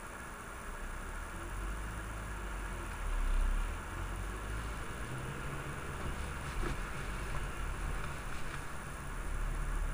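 Low engine and road rumble inside a car's cabin as it drives slowly in traffic, swelling briefly about three seconds in.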